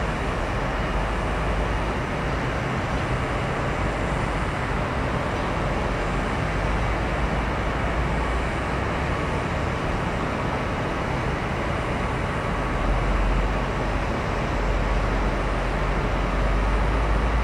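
Steady low rumble of engines and traffic, an even din with no single event standing out, a little louder near the end.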